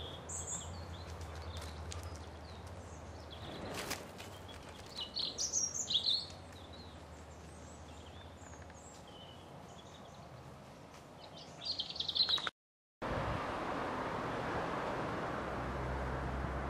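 Small birds chirping in short, high calls, busiest in the first six seconds and again just before the sound drops out for a moment about three-quarters of the way through. After the gap, a steady, even outdoor hiss takes over, with a low hum beneath it.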